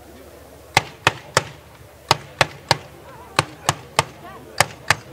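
Machine gun on the remote weapon station of an Eagle V armoured patrol vehicle firing in short three-round bursts: four bursts, the shots in each about a third of a second apart, the bursts about a second and a quarter apart.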